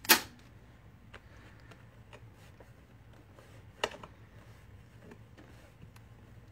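Stamping tool and supplies being handled on a craft table: one sharp clack just after the start, faint scattered ticks, and a second sharp click just before four seconds, over a faint low hum.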